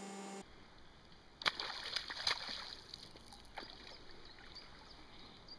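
A hooked grilse, a young Atlantic salmon, splashing at the surface of the river. A few sharp splashes stand out about one and a half and two and a half seconds in, with smaller slaps and water noise between.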